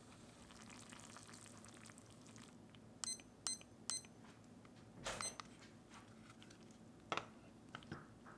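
Packaging crinkling, then three short electronic beeps about half a second apart, like a kitchen appliance's buttons being pressed, followed by a few sharp clattering knocks.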